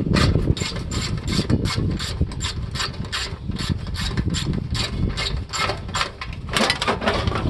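Hand ratchet wrench clicking steadily, about four clicks a second, as it backs bolts out of an air conditioning unit's casing; the clicking gives way to a denser scraping rattle near the end.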